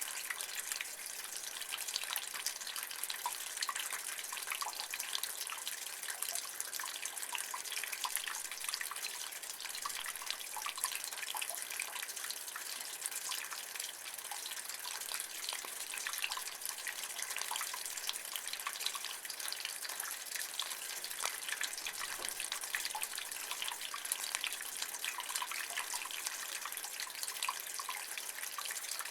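Rainwater running and dripping from a rain gutter: a steady splashing trickle with a dense patter of small drips, unchanging throughout.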